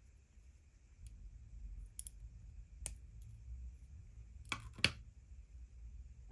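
Scattered light clicks and taps of small plastic model parts and tools being handled at a workbench, the loudest two close together just before five seconds in, over a low steady hum.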